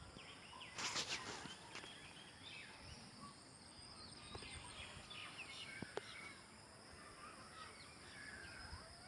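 Faint outdoor ambience with scattered short bird chirps over a steady high hiss, and a few brief clicks about a second in.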